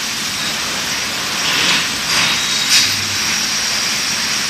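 Automatic glass bottle washing machine running with its bottle conveyor: a steady, even hiss of machinery. A few sharper, louder sounds break through between about two and three seconds in.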